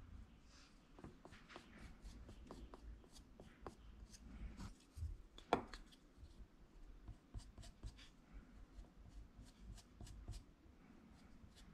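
Faint handling sounds of hands and a wooden sculpting tool working soft terracotta clay around cotton cord on a pinch pot's rim: light scrapes and taps, with one sharper click about five and a half seconds in.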